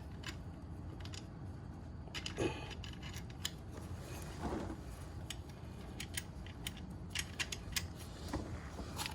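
Light, irregular metallic clicks and clinks of steel washers being fitted onto an electric scooter's wheel axle by hand.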